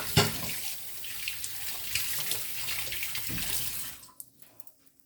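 Kitchen tap running into a sink, with a few knocks near the start; the water shuts off about four seconds in.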